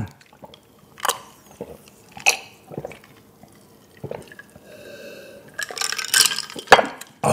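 A person drinking zero cola from a glass: a few short, separate swallowing and liquid sounds, then a louder run of gulps near the end.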